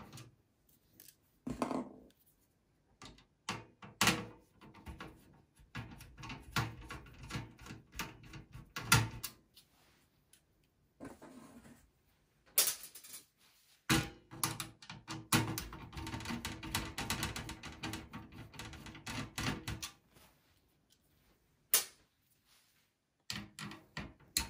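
Phillips screwdriver backing motherboard screws out of a steel computer chassis: bouts of scraping, clicking turns broken by several sharp knocks of metal on metal.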